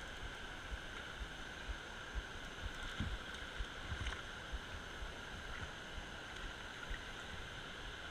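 Steady rush of creek water spilling over a low dam, with low thumps of wind on the microphone.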